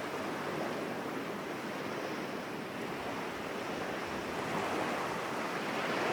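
Ocean-waves background sound effect: a steady wash of surf that swells slightly in the second half.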